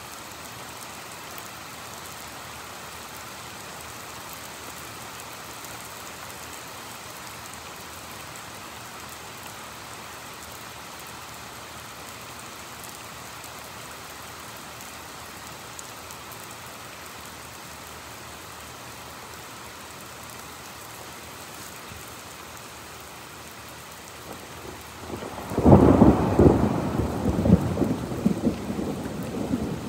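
Steady heavy rain. Near the end a sudden loud thunderclap breaks in and rumbles on for several seconds.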